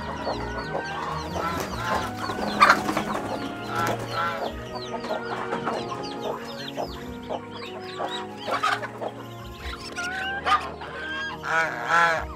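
Chickens clucking, many short calls overlapping, with louder moments about two and a half seconds in and near the end.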